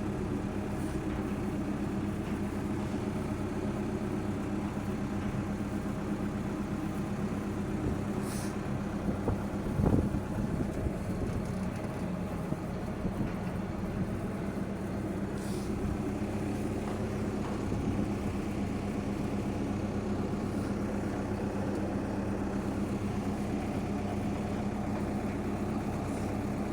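Heavy diesel engine of an excavator running steadily, with a brief hiss twice and a clunk about ten seconds in.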